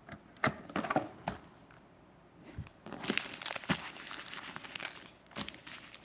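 Foil trading-card pack wrappers crinkling and tearing as they are handled: a few sharp crackles, then a longer burst of crinkling partway through and one more crackle near the end.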